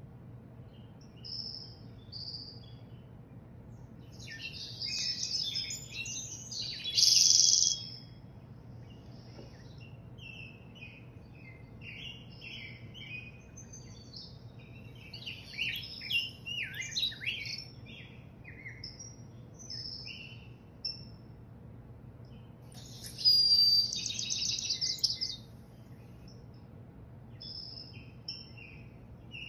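Songbirds chirping and singing, played through a television's speakers from a bird video: scattered short chirps and trills, with louder bursts of song around five to eight seconds in and again around twenty-three to twenty-five seconds, over a faint steady low hum.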